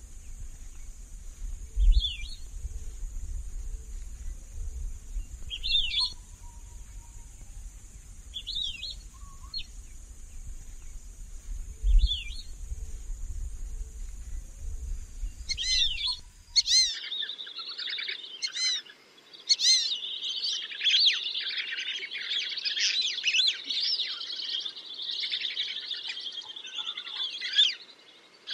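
Lesser whistling ducks calling. First come single short whistles every few seconds over a steady hiss and a low rumble. After an abrupt change about two-thirds of the way in, a flock gives a dense chorus of overlapping whistles.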